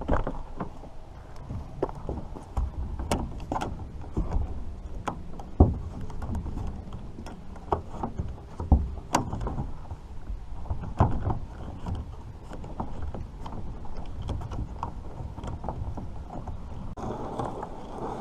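Irregular knocks and clunks of gear and paddle against a kayak, over a steady low rumble.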